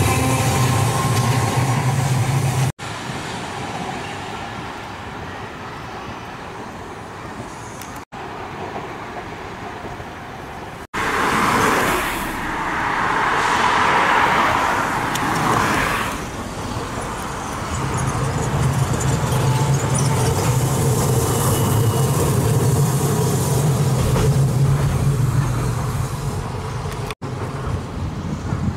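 Street traffic on a tramway: cars and streetcars running past, with a steady low engine hum. A louder pass of a nearby vehicle comes about halfway through. The sound breaks off and changes abruptly several times.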